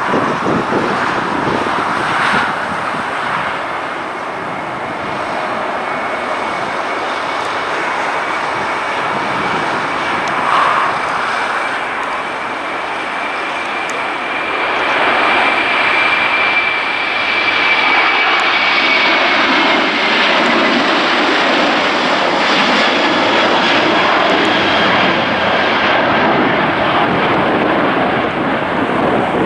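Airbus A330-200 jet engines at takeoff power during the takeoff run and climb-out: a loud steady rushing noise with a high whine. It gets louder about halfway through as the airliner lifts off and passes, and the whine then falls slightly in pitch.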